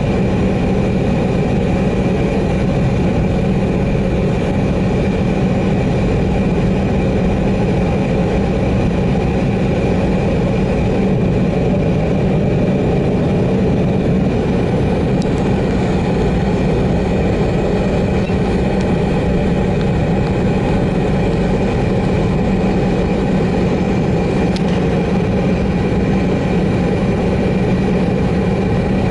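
Embraer 190 jet's turbofan engines and cabin noise heard from inside the passenger cabin while taxiing at low power: a steady low hum with a thin, constant high tone over it.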